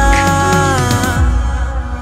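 Music: a song with held melodic notes over a bass line, the bass dropping away near the end.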